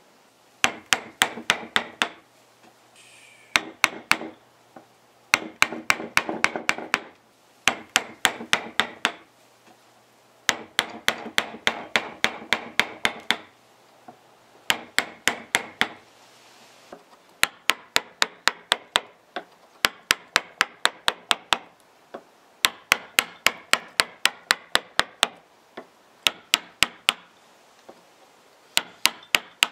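Wooden mallet striking the handle of a carving gouge as it cuts out the bowl of a wooden ladle: quick runs of sharp knocks, several a second, in bursts of a second or two with short pauses between.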